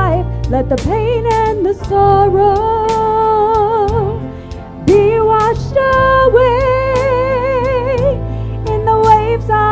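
Live church worship band: voices singing a slow melody with vibrato, over electric guitar, bass guitar and drums keeping a steady beat.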